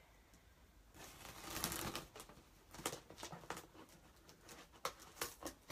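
Faint rustling and crinkling of packaging as a delivery box is opened by hand: a longer scraping rustle about a second in, then scattered light clicks and rustles.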